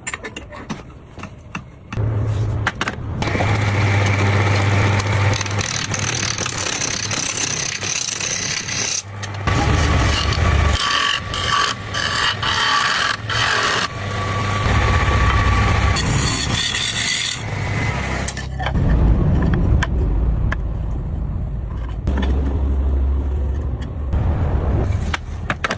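Electric woodworking power tool running against wood: a steady motor hum under a scraping noise. It starts about two seconds in and drops off briefly a few times.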